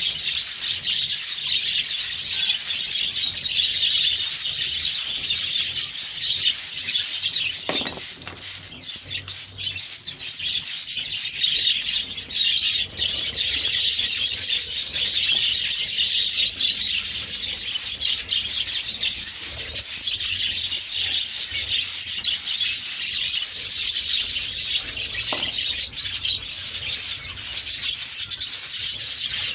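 A flock of small caged birds chirping continuously, a dense aviary chatter of many overlapping short calls.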